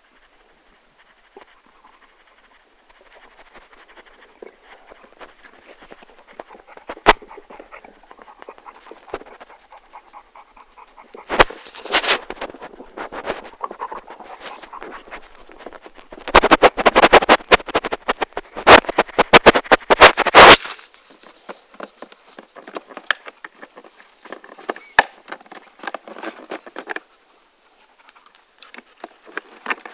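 A dog panting. Two stretches of loud noise made of rapid clicks cut across it, a short one about a third of the way in and a longer one of about four seconds just past the middle.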